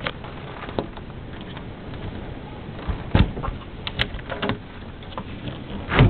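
Hurricane wind and rain, a steady rushing noise with scattered knocks and thumps; the loudest thumps come about three seconds in and again near the end.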